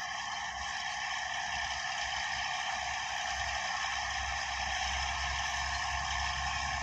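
Komatsu D155A bulldozer running steadily while working, a constant mechanical din with a low rumble underneath.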